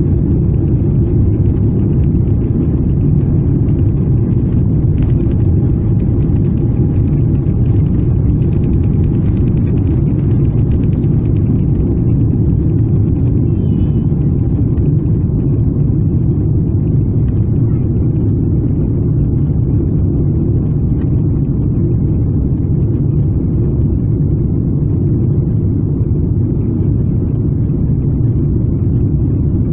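Cabin noise of a Boeing 777-300ER during its takeoff roll and lift-off: a loud, steady low rumble of the GE90-115B engines at takeoff thrust, heard from inside the cabin.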